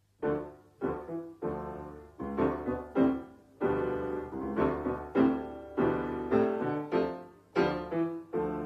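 Piano playing a slow run of chords, a new chord struck about every half second to a second and left to ring and fade.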